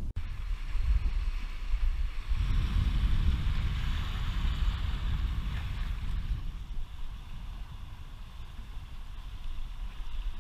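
Wind buffeting the microphone with a low rumble, joined from about two seconds in by the steady wash of small waves lapping on the shore.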